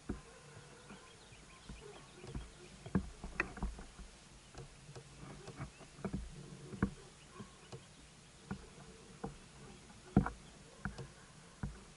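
Irregular light knocks and small slaps on a plastic fishing kayak's hull, about one every second, the loudest about three and a half and ten seconds in.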